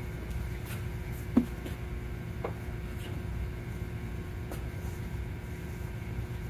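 Steady low hum of machine-shop background with a faint steady tone, and a few light knocks and clicks from handling the robot arm and its teach pendant. The sharpest knock comes about a second and a half in, with a softer one a second later.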